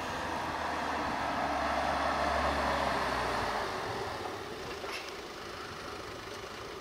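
Mercedes GLB 220d with its 2.0-litre diesel driving slowly past: engine and tyre noise swell to a peak about two and a half seconds in, then fade as it moves away.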